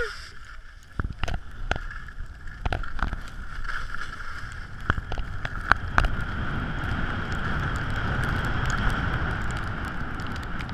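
Snow hissing and scraping under a rider's edges while sliding downhill, with wind rumbling on the microphone and a few sharp clicks. The hiss grows steadier and louder from about halfway through.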